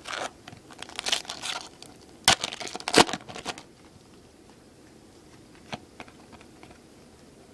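Foil trading-card pack wrapper crinkling and being torn open, with two sharp snaps a little over two and three seconds in, then a few faint clicks of handling.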